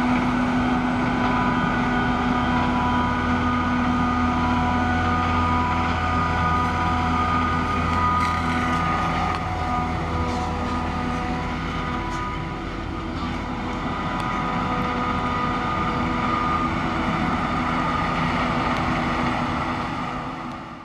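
Claas Jaguar 870 self-propelled forage harvester and a Fendt tractor running while chopping maize: a steady engine drone with several steady high whining tones over it. It fades out right at the end.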